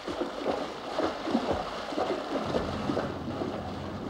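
A camel wading through shallow muddy water, its feet splashing and sloshing with each step. A low steady rumble comes in about halfway through.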